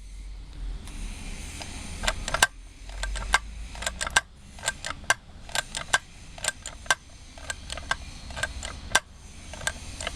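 Simplex 85A railroad ratchet jack being worked by its lever: a run of sharp ratchet clicks, about two or three a second, starting about two seconds in.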